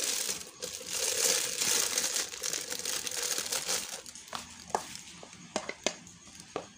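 Thin plastic piping bag crinkling as thick choux dough is spooned into it, a dense rustle for about the first four seconds. After that come several scattered sharp clicks of a spoon against a stainless steel bowl.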